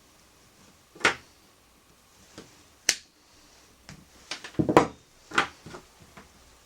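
Hands handling small parts and tools during ignition-coil work: a few separate sharp clicks and knocks, with the loudest cluster about two thirds of the way in.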